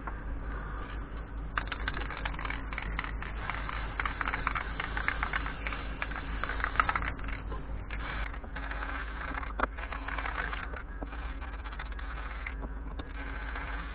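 Hand wire brush scrubbing charred wood in quick strokes, a dense rasping scratch that pauses briefly now and then, brushing soot out of the burnt grain. A low steady hum runs underneath.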